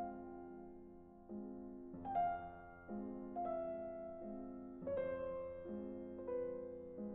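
Quiet, slow piano music: notes and chords struck about once a second, each left to ring and fade.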